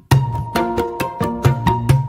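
Background instrumental music with a quick, steady percussive beat and pitched notes; the fuller accompaniment comes in just after the start.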